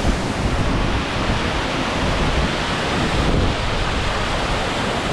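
Virginia Falls, a waterfall, rushing: a loud, steady roar of falling water, with wind rumbling on the microphone.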